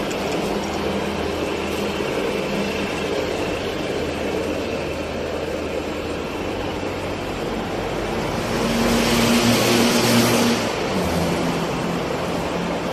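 Dahlih DL-GH950 milling machine running under power, a steady mechanical hum whose low tones shift as it runs. A louder hissing whir joins it for about two seconds, two-thirds of the way in.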